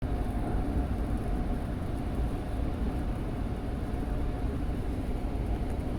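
Steady low rumble of vehicle noise heard inside the cabin of a RAM 1500 pickup, the kind of noise a cabin sound-insulation test listens for.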